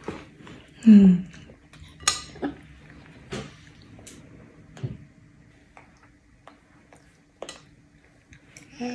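Metal spoon tapping and scraping in a ceramic bowl as a toddler eats: scattered light clicks, one every second or so, with a short vocal sound from the child about a second in.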